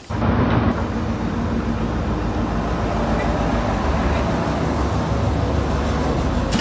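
Steady, loud noise of a moving vehicle, low and rushing, cutting in suddenly at the start.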